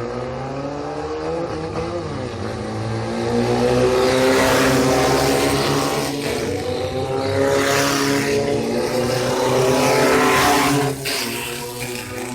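Off-road race car engine revving hard under acceleration, its pitch climbing, dropping at a gear change about halfway, then climbing again and falling off sharply near the end.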